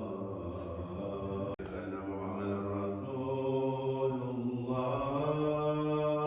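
A man's voice chanting an Islamic religious chant in long held notes, moving to a new pitch every second or two.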